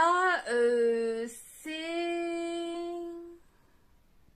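A woman's voice speaking, then drawing out one word ("c'est…") on a single steady pitch for about two seconds while hesitating, then near silence.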